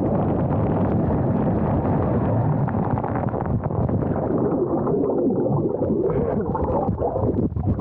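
Muffled rushing of water and air on a body water slide, steady and loud, with wavering, warbling sounds coming in over it in the second half.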